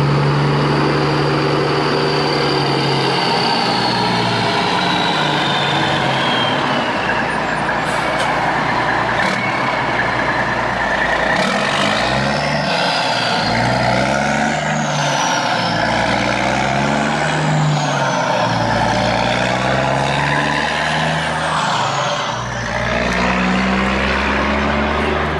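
Heavy vehicle engine running loud and steady, its pitch rising and falling again and again, with several falling high-pitched whines over it.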